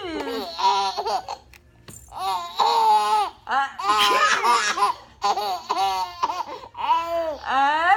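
Twin babies laughing in about six high-pitched bouts of giggles, in reaction to a sneeze.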